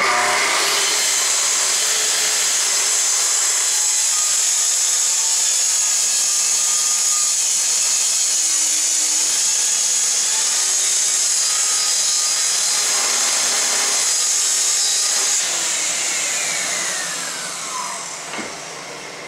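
Festool TS 55 REQ plunge track saw starting up and cutting through Baltic birch plywood along its guide rail for about fifteen seconds. It then stops cutting and winds down with a falling whine.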